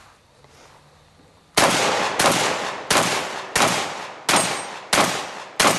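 Mossberg 930 JM Pro 12-gauge semi-automatic shotgun fired rapidly: seven shots about two-thirds of a second apart, starting about a second and a half in, each trailing off before the next.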